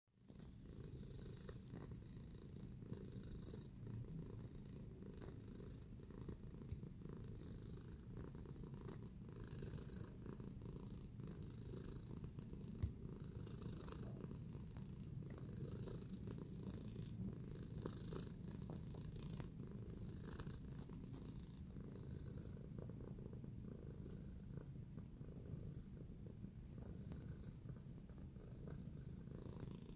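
Domestic tabby cat purring steadily and close up, with soft scratchy rustles coming and going about once a second as its claws knead the fleece bed.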